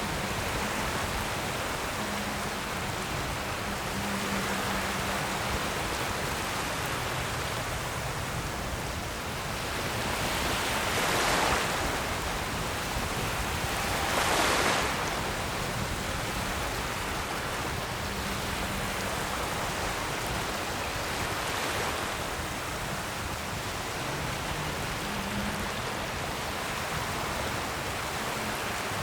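Ocean surf: waves washing in a steady hiss, with two louder waves breaking a few seconds apart near the middle.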